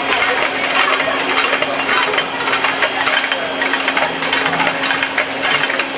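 Rapid, irregular metallic clicking and clattering over a steady low hum.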